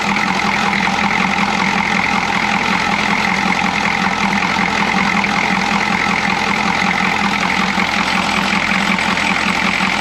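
Chevy G20 van's 6.2 L V8 diesel engine idling steadily, with its air box and air cleaner removed.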